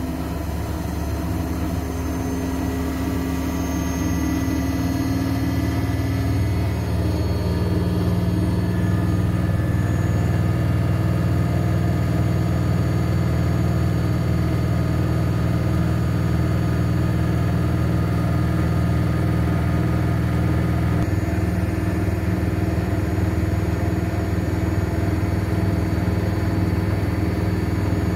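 Washing machine drum spinning up. The motor's whine rises in pitch over the first several seconds, then settles into a steady fast spin with a low hum. The tone shifts slightly about three-quarters of the way through.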